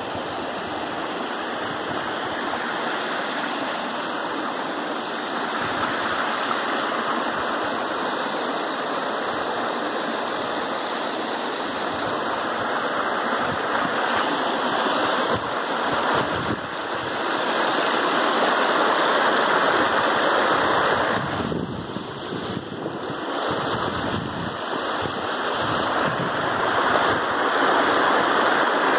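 A small forest stream rushing and splashing over rocks and fallen logs. It is a steady rush that grows louder in the second half and dips briefly about two-thirds of the way through.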